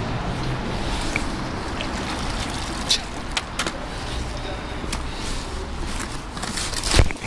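Metal child's scooter, caught on a fishing magnet, knocking and clattering against the concrete edge as it is hauled from the water and handled, with a few sharp knocks about three seconds in and a louder knock near the end. A steady background noise runs underneath.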